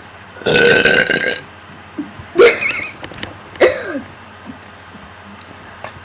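A long, loud burp about half a second in, then two shorter vocal sounds, the last falling in pitch. These are deliberate burps in a burping contest.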